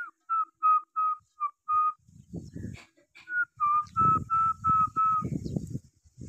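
A person whistling to call a pet peacock: two runs of about six short, even whistled notes, about three a second, with a pause between them. Wind buffets the microphone from about two seconds in.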